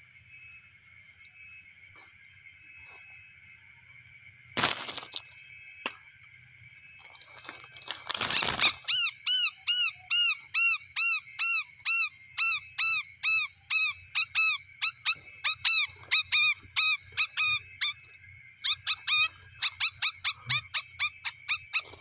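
A small brown songbird, caught and held in the hand, giving loud repeated distress calls, two to three short arched squeaks a second, starting about halfway in with a brief break near the end. Before the calls, a couple of sudden rustles and thumps of leaves as it is grabbed.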